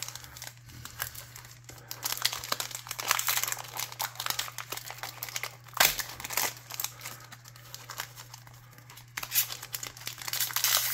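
Crinkly wrapper of a hockey card pack being handled and torn open by hand: an irregular run of crackles with a sharp snap about halfway through.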